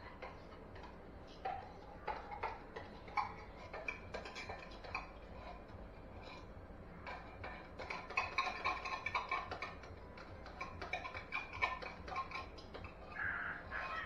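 A seasoning container shaken and worked over a pan, giving many light, irregular clicks and rattles.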